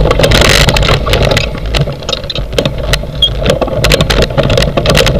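Dog rig's frame and handlebar camera mount rattling and knocking over and over as the harnessed huskies lunge against it, over a steady low rumble.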